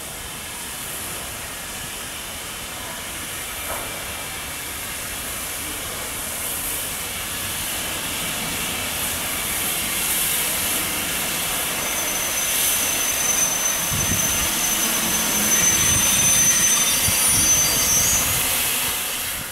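GNR(I) V Class 4-4-0 compound steam locomotive moving slowly, with a steady hiss of steam escaping at the cylinders that grows louder as it nears. Over the last several seconds a thin high-pitched squeal and a low rumble join in.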